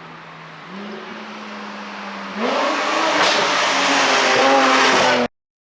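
Porsche 718 GTS 4.0's flat-six engine through an iPE exhaust, idling, then raised a little about a second in and revved up about two and a half seconds in, much louder; the sound cuts off abruptly near the end.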